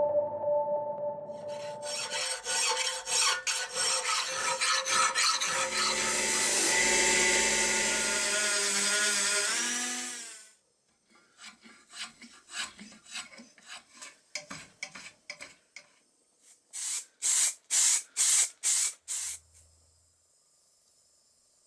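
Hand-tool scraping and rasping on metal and wood: a dense, continuous run of rasping strokes, then after a short break scattered strokes that give way near the end to about eight hard, evenly spaced strokes, some two a second. The fading tones of the intro jingle are heard at the very start.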